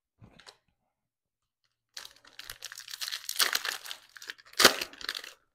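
Foil wrapper of a football trading-card pack being torn open and crinkled by hand. A short rustle comes first. About two seconds in, roughly three seconds of crinkling and tearing begin, with one sharp, loud rip near the end.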